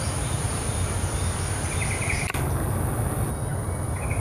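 Outdoor garden ambience: a steady high-pitched whine over a low rumble, with short chirping calls from a small bird about two seconds in and again near the end. A sharp click sounds a little past two seconds in.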